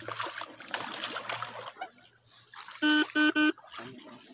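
Electric fish stunner giving three short, loud buzzes of steady pitch about three seconds in, after a stretch of soft rustling.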